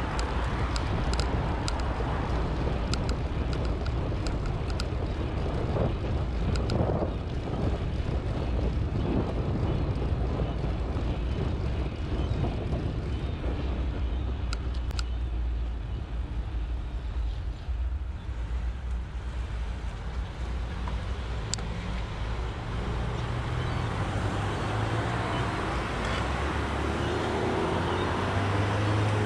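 Steady road traffic heard from a moving bicycle, with a heavy low wind rumble on the microphone and scattered light ticks. Near the end an engine rises in pitch as a vehicle accelerates.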